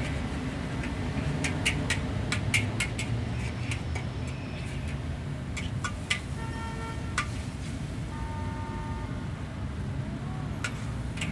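Steady low rumble of road traffic, with scattered sharp clicks and two short steady tones about six and eight seconds in.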